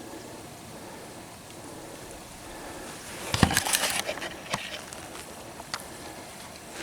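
A short burst of close crackling and rustling about three and a half seconds in, with a few faint single clicks afterwards, over a steady background hiss.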